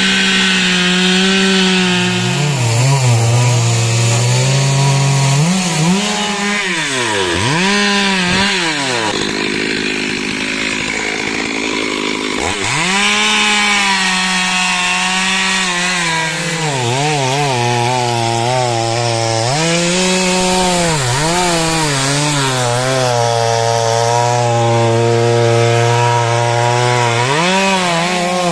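Stihl chainsaw cutting through wood at high revs, its engine pitch sagging and recovering again and again as the chain loads up in the cut. About nine seconds in the engine note drops away, then revs back up some three seconds later and carries on cutting.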